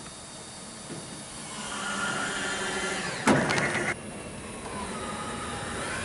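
Power drill driving a screw into a corrugated metal roof panel. The motor whine starts about a second and a half in, a short loud burst comes a little past three seconds as the screw goes through the metal, and the drill runs again near the end.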